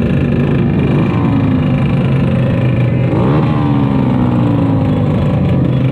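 A big pack of Honda Grom-style mini motorcycles idling together in a steady, loud drone of many small engines. About three seconds in, one engine is revved up and falls back to idle.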